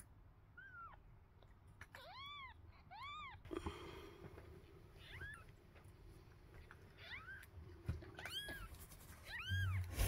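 Newborn kittens mewing: a dozen or so short, high-pitched squeaky mews, each rising and then falling in pitch, some in quick pairs.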